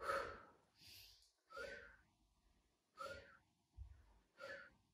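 A woman's faint, short breathy exhalations, one about every second and a half, in time with the repetitions of a side-lying pilates leg lift.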